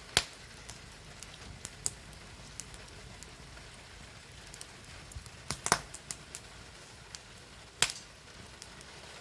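Wood fire crackling in a fire pit: scattered sharp pops over a faint steady hiss, the loudest near the start, about five and a half seconds in and near eight seconds.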